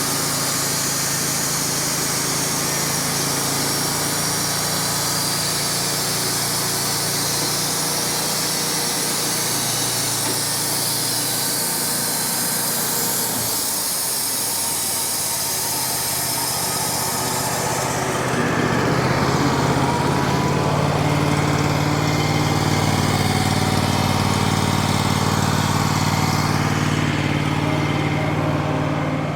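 Engine-driven band sawmill running steadily, its blade cutting through a walnut log with a hiss over the engine. About two-thirds of the way through the hiss drops away and the engine note gets a little louder, as the blade comes out of the cut.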